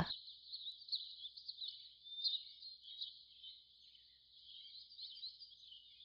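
Faint rainforest ambience: many small birds chirping and twittering over a steady high-pitched hiss.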